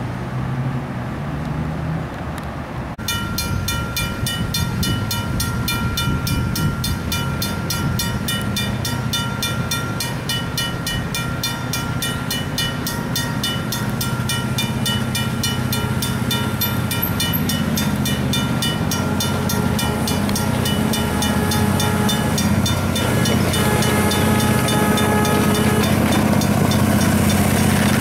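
A ride-on 7.5-inch gauge miniature train approaching on its track. Its locomotive's motor runs with a steady whine and a low hum, over rapid, even clicking, and the sound grows louder as the train nears. Before that, about three seconds of low street-traffic hum.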